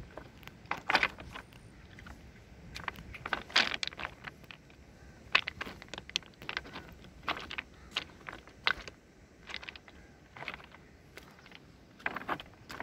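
Loose river stones and pebbles crunching and clacking together underfoot in an uneven walking rhythm, about one sharp clack a second.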